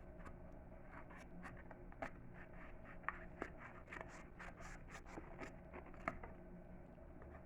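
The small spring-action scissors of a Leatherman Micra multi-tool snipping through cardstock: a run of faint, short snips and paper rustles, most of them between about one and six seconds in.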